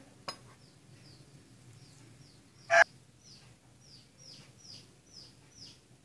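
Bird chirping: a steady run of short, high chirps, each falling in pitch, about three a second. A sharp click comes just after the start, and one brief loud sound a little before three seconds in.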